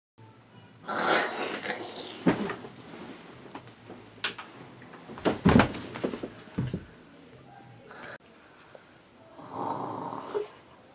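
A sleeping person's snore-like breathing, mixed with bedding rustling and several sharp knocks. The loudest knocks come in a cluster about five and a half seconds in, and a breathy snore-like sound comes near the end.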